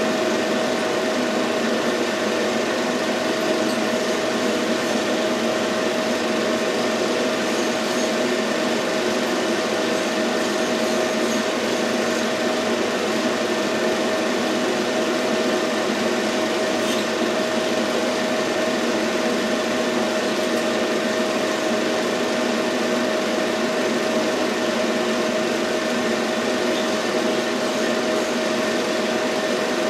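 Film projector running: a steady mechanical whir with a constant pitched hum.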